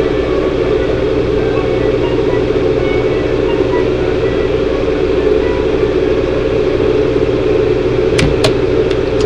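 A steady machine-like hum with an even low drone, and two sharp clicks just after eight seconds in.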